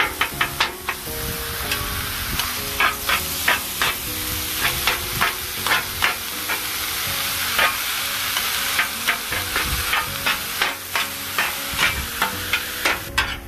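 Sliced roast beef sizzling on a hot Blackstone gas griddle while the edges of two metal spatulas chop through it. The blades clack against the steel griddle top roughly twice a second at an uneven pace, over a steady sizzle.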